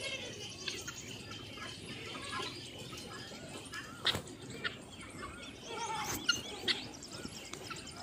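Many birds chirping and calling together in quick, overlapping short notes, with a few sharp clicks about four seconds in and again around six to seven seconds in.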